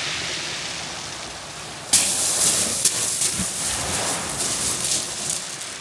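Footsteps crunching on shingle pebbles close by, starting suddenly about two seconds in as a run of sharp crunches a few tenths of a second apart, over a steady hiss.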